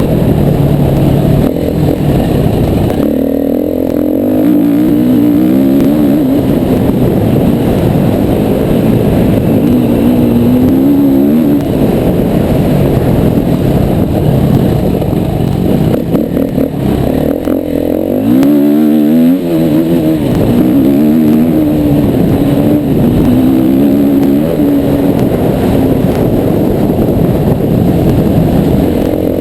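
Yamaha WR250R dirt bike's 250 cc single-cylinder four-stroke engine being ridden hard off-road, its note repeatedly climbing and dropping as the throttle is opened and closed and gears change.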